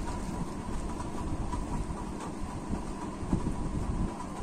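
A hand mixing and squeezing sliced onions with gram flour in a bowl for pakora batter, making a continuous irregular rustling and squishing.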